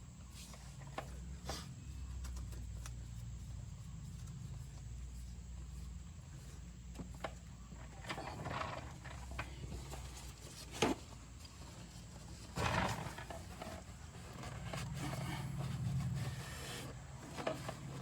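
Hands fitting a new spin-on fuel filter to its head on a Bobcat 763: scattered rubbing and scraping noises, with a sharp click about halfway through, over a low, wavering rumble.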